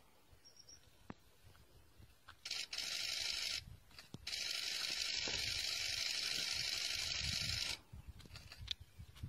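Spotted hyena tearing and chewing at a live impala, heard as soft rubbing, scraping and low thuds. A loud, steady high hiss comes in about two and a half seconds in, breaks off briefly, returns, and cuts off suddenly near the end.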